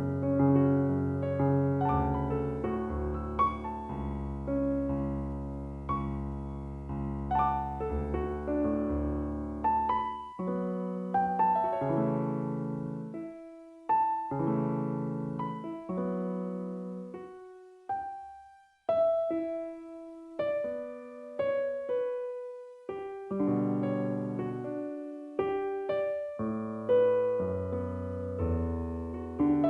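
Solo piano music playing slowly: sustained low chords for the first third, then sparser single notes and chords that each ring and fade, with a brief pause about two-thirds of the way in.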